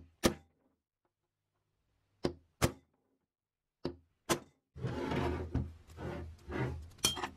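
Hammer striking a punch held on a small bear trap's round metal pan: sharp, brief metallic knocks, mostly in pairs. About two-thirds of the way in come a few seconds of scraping and handling noise as the pan is moved on the wooden bench, then one more sharp knock near the end.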